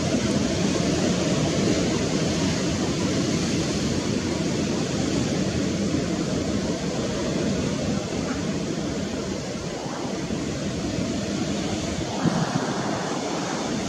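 Steady low rushing of wind and sea surf, with a brief higher-pitched sound about twelve seconds in.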